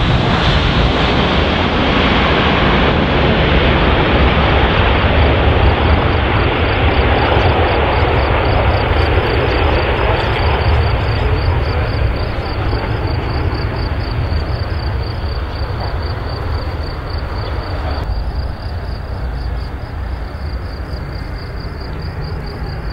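Jet engines of an easyJet Airbus A320-family airliner on its takeoff roll: a loud, even roar that slowly fades as the aircraft moves away down the runway. A thin, steady high whine sits above the roar from about a quarter of the way in.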